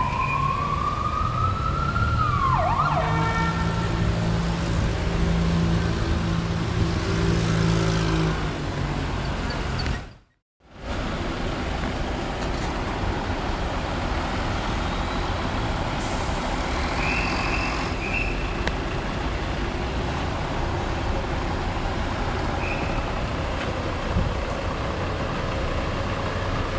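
Street traffic of buses and cars with engines running. A siren rises in pitch and cuts off about three seconds in, and the sound drops out briefly near ten seconds in.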